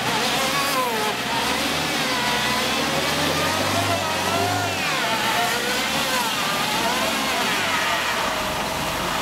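Ford Transit van's engine revving up and down in slow rising and falling swells as the van struggles for grip on an icy, snow-covered road while it is pushed.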